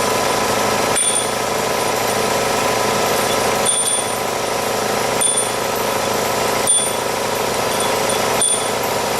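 A machine running steadily with a dense hum of steady tones, broken by a brief dip with a short high tone every second or two.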